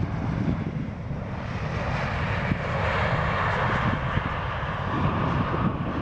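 Distant jet airliner landing on the runway: a steady engine hiss that grows louder about two seconds in, over a low rumble.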